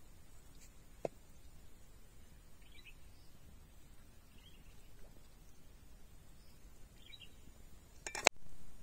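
A few light clinks and knocks of a steel kitchen knife against a wooden log cutting board, with one sharp, loud knock near the end.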